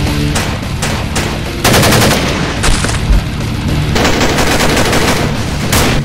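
Gunfire sound effects: a few single shots, then two bursts of rapid automatic fire, the second lasting about two seconds near the end, with background music underneath.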